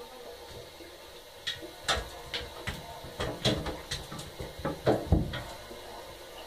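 A kitten's claws and paws clicking and scrabbling on the hard surface of a bathtub, a run of irregular clicks and knocks with a couple of heavier thumps about five seconds in.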